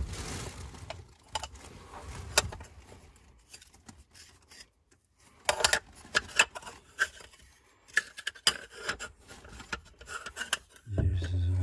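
Hard black ribbed discs handled by hand on bedding: sharp clicks and knocks as they are lifted apart and set back down, with rubbing and scraping between them. The clicks come in clusters about halfway through and again later.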